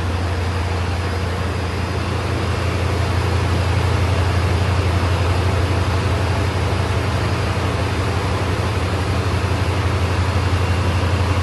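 Steady low engine rumble under an even hiss, growing a little louder about two seconds in, as from an idling vehicle.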